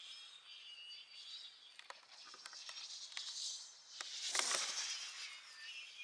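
RCRCM Sunbird DS carbon glider whooshing through the air at speed, the swoosh swelling and fading as it passes, loudest about four and a half seconds in.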